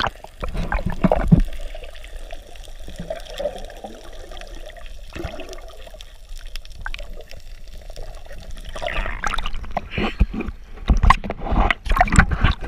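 Seawater splashing and sloshing against an action camera as it bobs in and out of the water, with a quieter, muffled stretch in the middle while the camera is submerged, and loud splashes again near the end as it breaks the surface.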